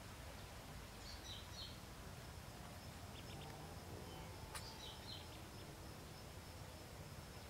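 Faint, short high peeps from newly hatched ducklings in the nest, a few at a time about a second, three and five seconds in, over a steady outdoor background hiss; a single sharp click a little past halfway.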